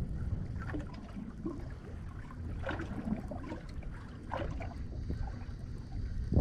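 Wind buffeting the microphone as a steady low rumble, with small waves lapping and slapping against the side of a drifting boat now and then.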